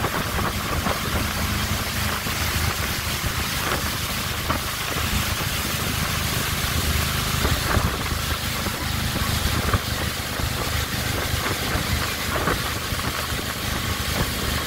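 Motorboat running steadily at towing speed, its engine drone under the rush of water churned up in the wake.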